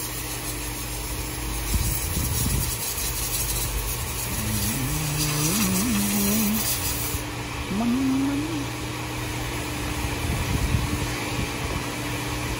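Car-wash equipment running with a steady hum under a high hiss; the hiss cuts off about seven seconds in.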